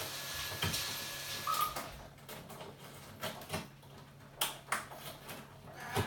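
Scattered light clicks and taps from an Amazon parrot moving about its cage perches, with a faint brief whistle-like note about a second and a half in.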